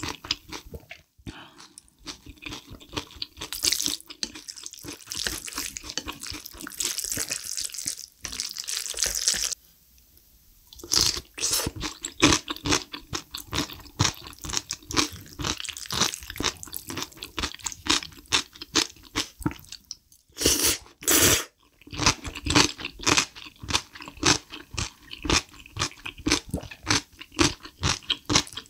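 Close-miked eating of black bean ramyeon noodles and kimchi: wet chewing, then dense, crisp crunching of kimchi through the second half, with a short pause about ten seconds in.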